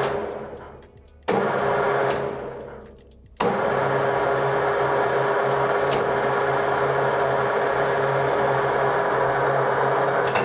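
Metal lathe's electric motor switched on and off at its on/off switch, where a screwdriver is working the contacts. It starts twice briefly, winding down each time, then starts again about three seconds in and runs steadily with a steady hum until it is switched off and winds down at the end.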